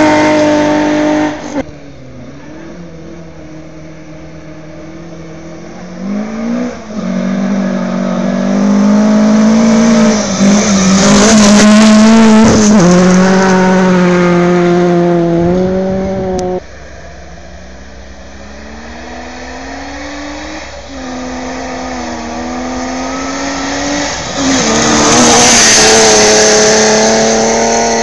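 Rally cars going flat out past on a loose gravel stage, one after another: engines revving hard and climbing in pitch through each gear, then dropping back at each shift. The sound is loudest as each car goes by. It drops off abruptly about a second and a half in and again about halfway through.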